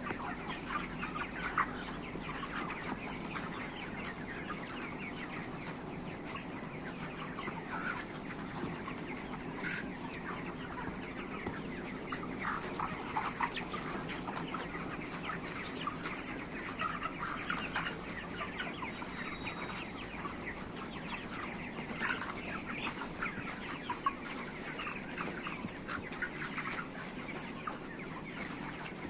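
A large flock of 35-day-old farm chickens clucking and calling continuously, many short overlapping calls at once, over a steady low hum.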